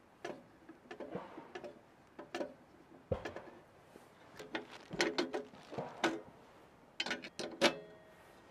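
Irregular metal clicks, taps and clanks from a S'more Magic Stove stainless-steel wood stove being put together by hand as its wooden door handle is fitted and a steel top plate is set in place. The loudest knock, near the end, rings briefly.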